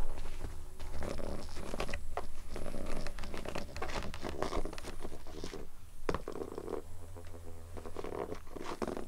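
Cats pawing and nosing at a felt tube toy right by the microphone: irregular rustling, scratching and soft thuds on carpet over a steady low rumble, with a short rough buzzing sound a little after seven seconds in.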